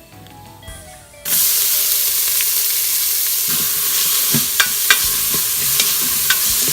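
Chopped onions hitting hot oil in an Instant Pot's inner pot on sauté: a loud sizzle starts suddenly about a second in and holds steady, with a few sharp clinks of a spoon against the pot as they are stirred.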